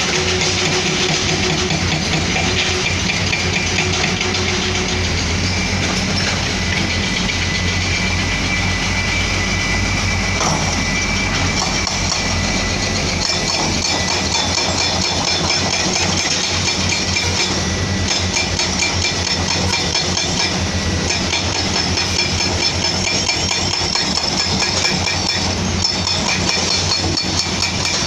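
Komatsu PC210-10MO excavator's diesel engine running steadily, with a light metallic rattle and clinking over it.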